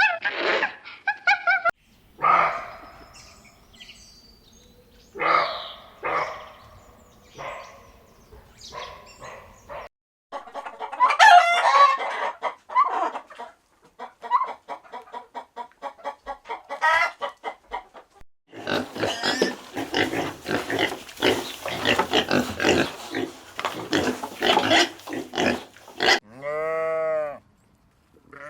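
A run of farmyard animal calls, chiefly chickens clucking and a rooster crowing, one call after another with short gaps. A dense stretch of rapid calls comes in the second half.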